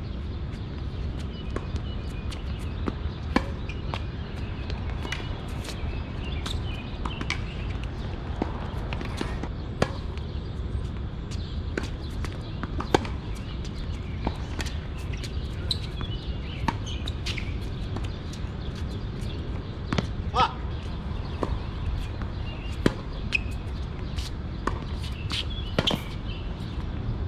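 Tennis balls being struck by rackets and bouncing on the court: sharp, irregular pops every second or two over a steady low rumble.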